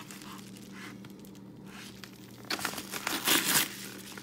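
Packaging being torn open and crinkled by hand, with a burst of tearing and crinkling a little past halfway.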